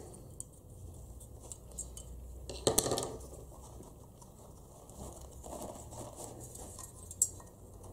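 Hands working a part loose from a diecast metal model car body: faint scrapes and light taps, with a louder scrape about three seconds in and a sharp click near the end.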